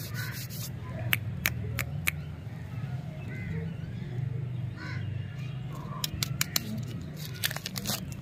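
Lollipop wrapper crinkling and tearing in the fingers as a stick lollipop is unwrapped, in a string of sharp clicks and rustles. Birds call now and then in the background over a steady low hum.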